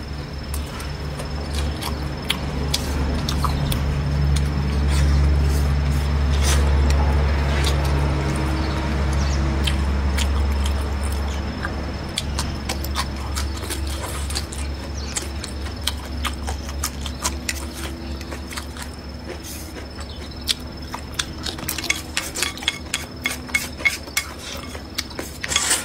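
Close-up eating sounds: chewing and mouth noises, with chopsticks clicking against a ceramic bowl. A low hum runs under the first ten seconds or so, and quick wet clicks crowd the last few seconds as the bowl is sipped from.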